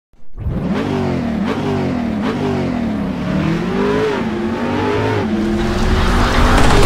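A car engine accelerating hard, its pitch climbing and dropping back several times, then holding steady near the end.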